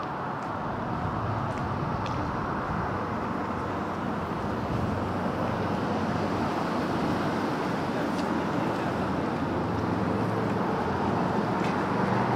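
Street traffic: a steady rumble of passing cars that slowly grows louder, with a vehicle engine coming in close near the end.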